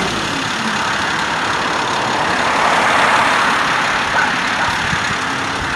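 Heavy work-site machinery running steadily, most likely the excavator's engine at the trench: a loud, even engine noise. A tone falls in pitch over the first second, and the noise cuts off suddenly at the end.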